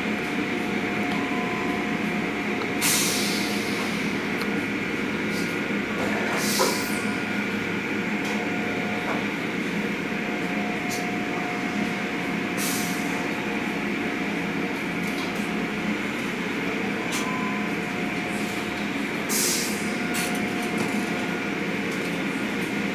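Automatic car wash running, heard from inside the car: a steady rush of water spray pouring over the car under a constant machinery hum, with a few short hissing bursts of spray.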